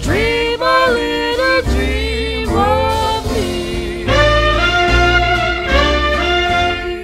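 Jazzy swing background music, with horns (brass and saxophone) playing the melody over a bass line.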